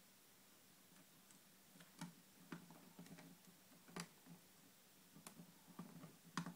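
Faint, irregular small clicks and taps of a mini screwdriver and tiny screws against a laptop screen frame as the screen is screwed into it.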